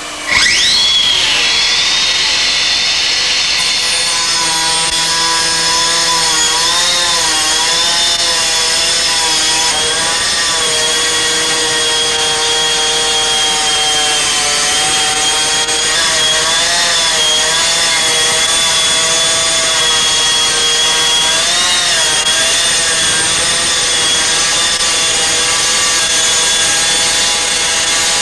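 Hydraulic stone-cutting machine's diamond disc cutting stone. It starts abruptly about half a second in, then runs as a steady high whine whose pitch wavers every few seconds as the load on the blade changes.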